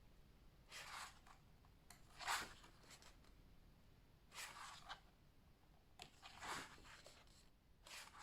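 Pages of a photobook being turned: five faint, brief paper rustles, about two seconds apart.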